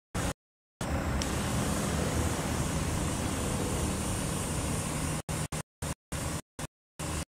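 Small airbrush compressor running steadily, with the hiss of air from the airbrush over it. The sound cuts out to dead silence for a moment just after the start and again in several short dropouts near the end.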